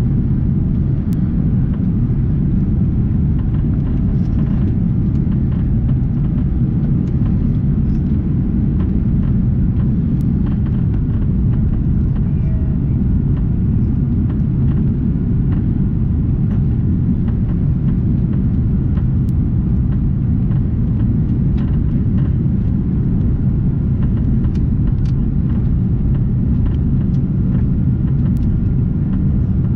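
Airbus A340-300 cabin noise heard from a window seat over the wing: a steady low rumble of the jet engines and airflow as the airliner descends on approach.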